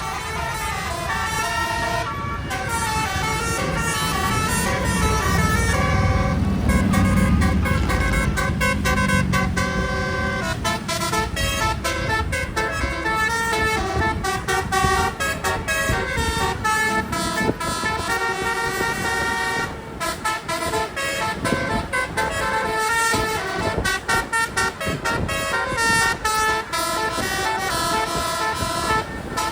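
Multi-trumpet telolet bus air horns playing quick tunes of stepped notes, changing pitch many times a second. A heavy bus engine rumble swells beneath them about six seconds in and fades again near ten seconds.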